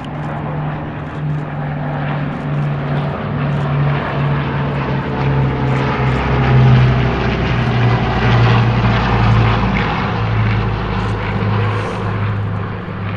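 Boeing B-29 Superfortress's four Wright R-3350 radial engines and propellers running in a low flyover. The sound swells to its loudest about halfway through, the pitch drops a little as it passes, and then it eases off.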